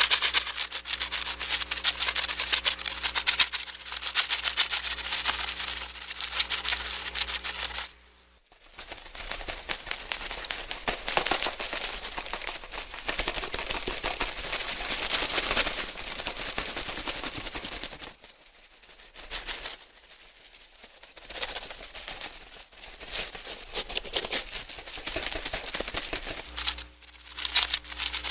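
Butterfly wing-flapping sound effect: rapid papery fluttering clicks in dense runs, falling away briefly about a third of the way in and again past halfway, with a steady low hum under the first part.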